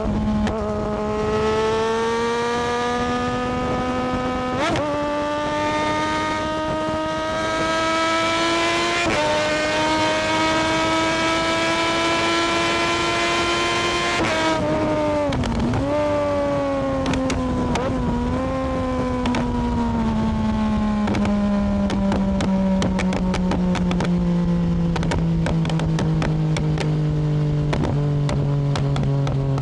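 Triumph Daytona 675R's inline three-cylinder engine pulling hard up through the gears, with short breaks at two upshifts. About halfway through the throttle shuts. The engine note then falls slowly on the overrun, with a string of sharp exhaust pops and crackles.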